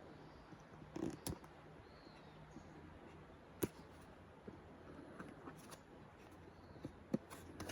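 Quiet room tone with a few faint clicks and taps: two about a second in, one near the middle and one near the end.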